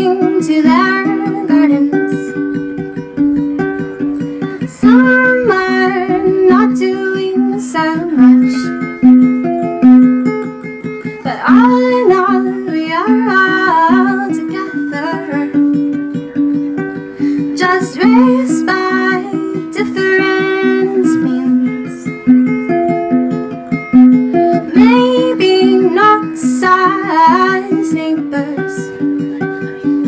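A woman singing a slow original folk song, accompanying herself on a ukulele with a steady, repeating picked pattern.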